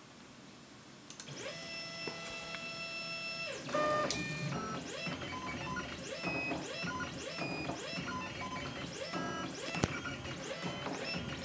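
Stepper motors of a 3D printer used as a pen plotter whining as the axes move. A steady whine starts about a second in, then gives way to short tones that jump in pitch with each move while the pen draws.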